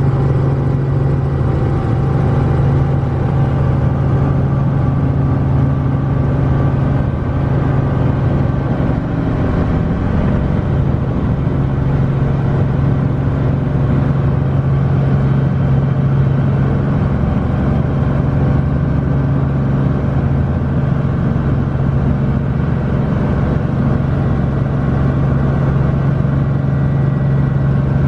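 Light helicopter's engine and rotor running steadily, heard from inside the cabin as a strong, even low hum with a stack of steady overtones.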